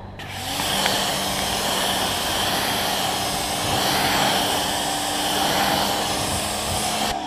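Water jet from a spray wand hissing steadily as it hits a car's hood, starting about a quarter second in and cutting off just before the end, with a steady low hum underneath.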